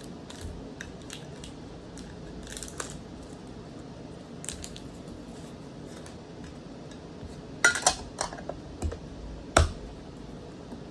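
Handling of trading-card booster packs: scattered small clicks and crinkles, with a cluster of sharper clicks and snaps near the end.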